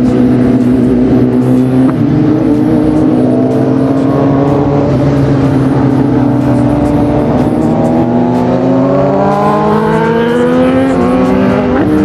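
Superbike engine running at a steady cruise, then climbing in pitch as it accelerates from about eight seconds in, with a short dip near the end like a gear change. A rush of wind noise lies under it.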